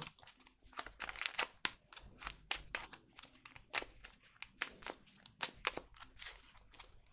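A deck of oracle cards being shuffled by hand: a quiet, irregular run of sharp card clicks and flicks, several a second.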